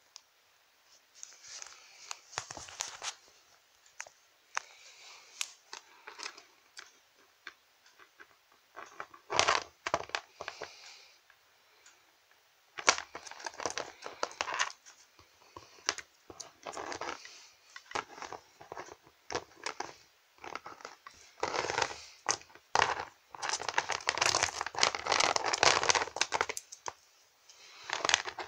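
Plastic toy figures handled by hand and moved against a toy castle playset: irregular rustling, scraping and clicking, busiest in the last third.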